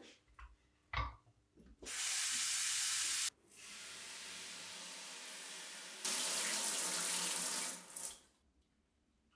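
Kitchen tap running water into a steel pan in the sink, starting about two seconds in, softening for a few seconds in the middle, then louder again before stopping about eight seconds in. A few soft knocks come before the water starts, the loudest about a second in.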